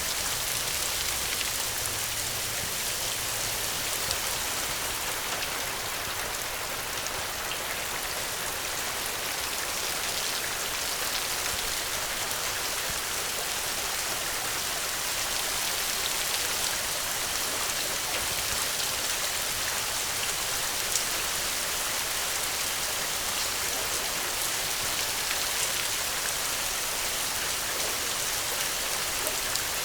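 Steady rainfall: an even hiss of rain with scattered drops pattering on surfaces.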